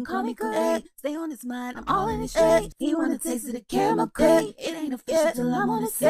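Unaccompanied sung vocal line in a hip hop track: an a cappella passage with no drums or bass under it.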